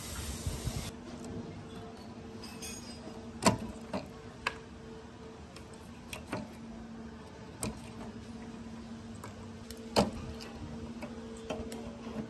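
A spray hiss, like an aerosol of penetrating oil or rust remover, cuts off about a second in. It is followed by scattered sharp metallic clicks and knocks from tools and metal parts being handled during disassembly, over a faint steady hum.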